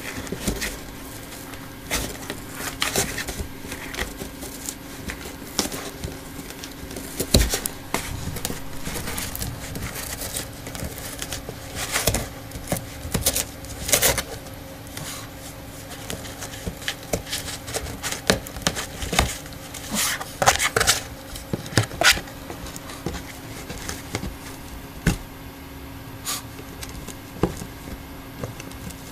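Shih Tzu chewing and scraping at a cardboard box: irregular scratches, rips and crackles of cardboard, in clusters with short pauses between.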